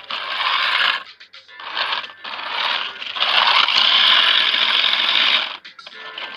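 Small geared DC motor and plastic gearbox of a homemade remote-control toy truck whirring in three runs. The last run is the longest and loudest, stopping shortly before the end.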